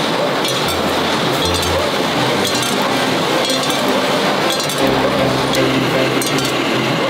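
Screw-making machinery running with a dense, steady mechanical din and frequent sharp metallic clinks of small steel screws. A low hum comes in about five seconds in.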